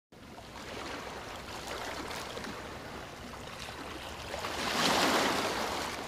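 Water lapping and rippling, with a louder wash of water that swells about four and a half seconds in and then fades.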